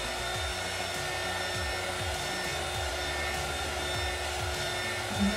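Small handheld electric dryer running steadily, blowing air onto a freshly glittered wine glass to dry the glue.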